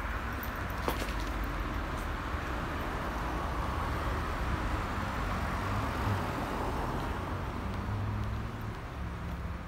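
Steady hum of road traffic, passing cars swelling and easing slowly.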